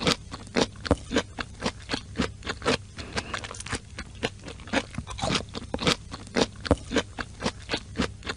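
A cat gnawing on a whole cucumber, giving crisp crunching bites about three a second.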